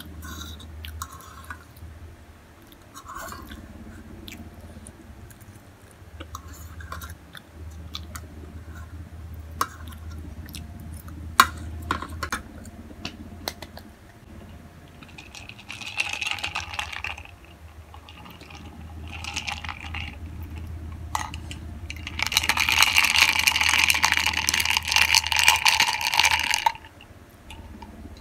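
Close-up eating of Samyang spicy instant noodles: chewing with small wet clicks and smacks, then several noisy slurps, the longest and loudest lasting about four seconds near the end.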